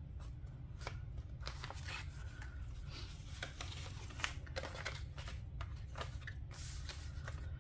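Glossy paper sticker sheets and planner pages rustling and crinkling as they are handled, a string of short crackles and taps over a low steady hum.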